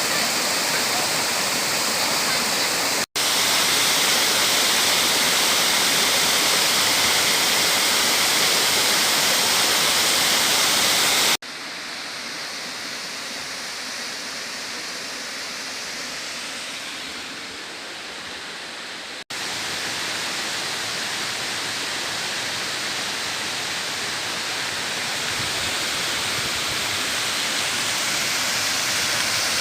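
Waterfall: a steady rush of falling water. It breaks off abruptly about 3, 11 and 19 seconds in. Between about 11 and 19 seconds it is quieter and duller.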